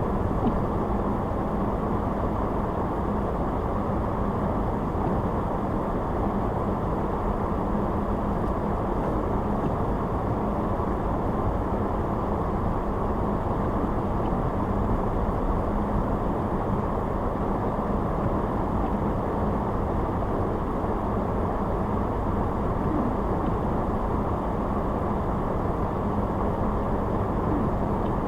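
Steady driving noise of a car on the road: tyre and engine drone with a low steady hum throughout.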